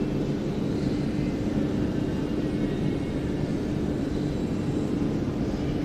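Steady background hum over a low rushing noise, unchanging throughout.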